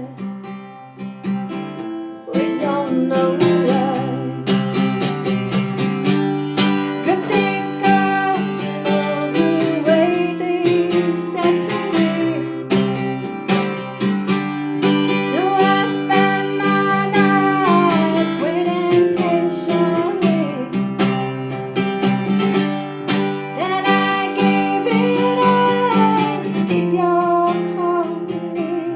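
Live band music: strummed acoustic guitar with a sung melody over it. It plays softly at first and comes in fuller and louder about two seconds in.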